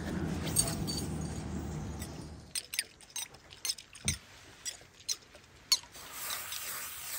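A low rumbling noise for the first couple of seconds, then scattered light clicks and taps of fishing gear being handled on a boat deck.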